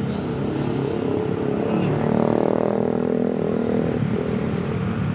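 Large bus engine running, growing louder about two seconds in and easing off again toward the end.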